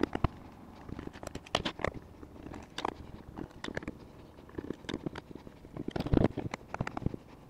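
Irregular clicks, taps and scrapes of a screwdriver working screws out of the plastic housing of a Makita cordless chainsaw. A louder clatter about six seconds in, as the screwdriver is set down on the table.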